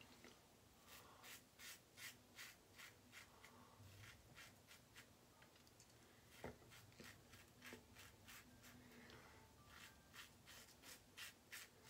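Blackland Sabre single-edge safety razor scraping through lathered stubble in short strokes, a few a second. The strokes are faint and come thickest near the end.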